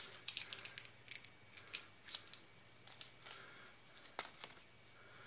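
Clear plastic packaging crinkling and crackling in quick, sharp little ticks as new parts are unwrapped by hand, thinning out in the second half.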